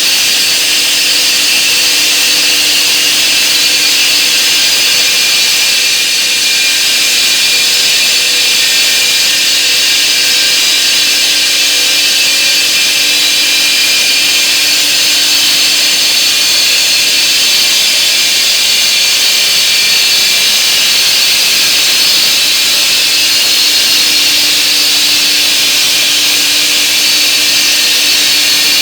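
Homemade semi-automatic stone-cutting machine running steadily as its saw cuts through stone: a loud, even, high-pitched whine with a faint low hum under it.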